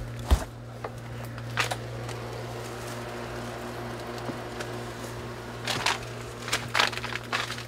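A steady low hum with a handful of short knocks and rustles scattered through it, the sharpest just after the start.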